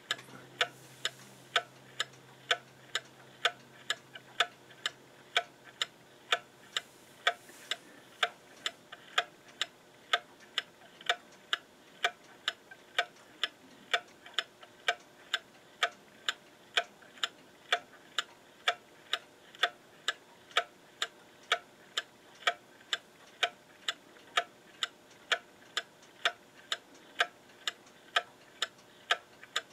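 Welch, Spring & Co. Patti VP clock movement ticking steadily, about two ticks a second, as its brass escape wheel steps round.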